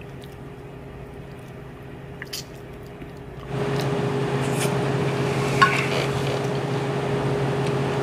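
Faint room tone, then about three and a half seconds in a steady machine hum with hiss sets in suddenly and holds, with a couple of faint clicks.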